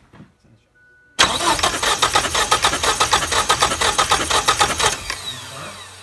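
1989 Ford Probe GT's 2.2-litre turbo four-cylinder being cranked over on the starter without catching, the number one spark plug removed. The cranking starts suddenly about a second in as a fast, even rhythm of strokes and dies away about four seconds later. It is a crank-no-start that the owners trace to no fuel reaching the cylinders.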